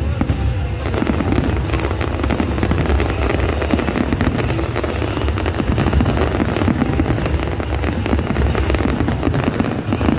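Large aerial fireworks display going off in a dense, continuous barrage of bangs and crackles.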